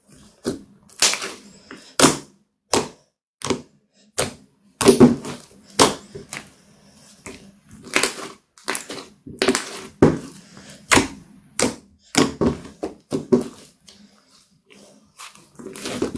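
Thick slime being squeezed, stretched and folded by hand, giving irregular sharp squelching pops and clicks about one or two a second, with a quieter moment near the end.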